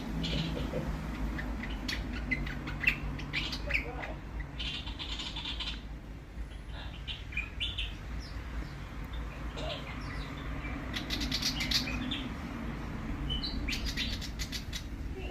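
Willie wagtail calling in several bursts of rapid chattering notes, with short single notes between, over a steady low hum.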